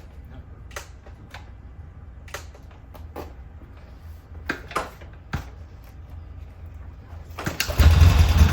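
Scattered mechanical clicks and knocks, then about seven and a half seconds in the 1975 Norton Commando Mk3's 850 cc parallel-twin engine fires on a cold start with the choke on and keeps running loudly.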